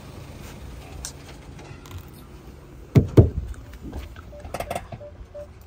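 Two heavy thumps about three seconds in, then a Hyundai Verna's warning chime starts beeping, about three short beeps a second, near the end.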